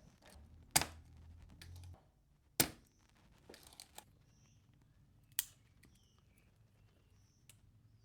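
A few sharp clicks or taps: three strong ones, about a second in, at about two and a half seconds and at about five and a half seconds, with fainter ticks between. A low hum sounds under the first two seconds.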